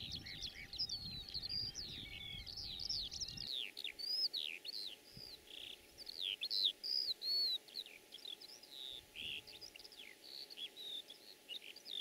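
Small songbirds singing, a fast continuous run of short chirps and rising and falling whistles. A low rumble underneath stops abruptly about three and a half seconds in.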